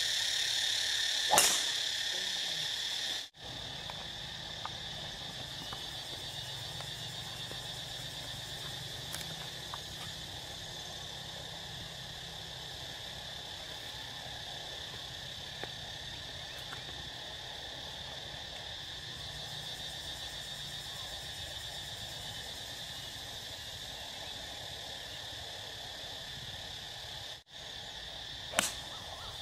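Steady, high-pitched chorus of insects, with a sharp crack of a golf club striking the ball about a second in and another near the end.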